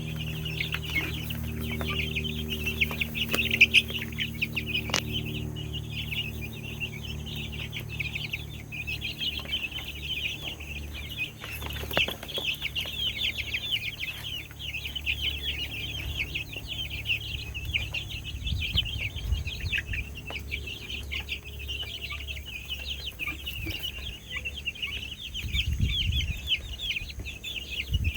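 A brood of young chickens peeping continuously in a brooder pen, a dense chorus of rapid high chirps, with a few sharp knocks and some low thumps of handling near the end.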